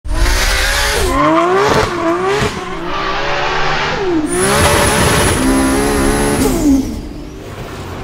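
Big-turbo 2JZ straight-six of a 1000 hp MK4 Toyota Supra revving hard, its pitch climbing and dropping several times as it goes through quick gear changes. About halfway in a high steady whistle rises over the engine for a couple of seconds, then the revs fall away and the sound fades near the end.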